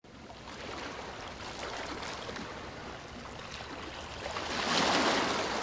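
Rushing-water sound effect, an even wash of noise with faint splashy ticks, swelling to a louder whoosh near the end.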